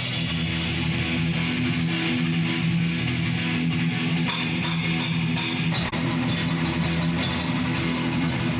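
Rock band demo recording: an electric guitar plays sustained low chords of a riff over bass, with cymbals and drums coming back in about four seconds in.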